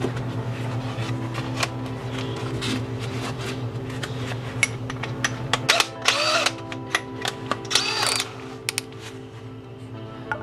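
Power drill being handled and run briefly as it is readied to drill a metal jar lid: a series of clicks and knocks, with short louder bursts about six and eight seconds in.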